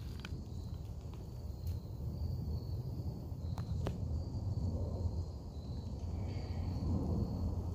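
Walking on a woodland hiking trail: a steady low rumble on the microphone, a few light clicks of steps and handling, and a faint high insect chirring now and then.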